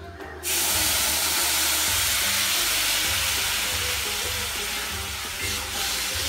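Tamarind juice hitting a hot kadai of oil, ginger and spices: a sudden loud sizzle starts about half a second in and goes on steadily, easing a little near the end.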